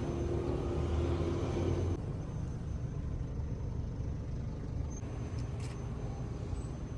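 A motor vehicle's low, steady rumble, a little quieter after about two seconds.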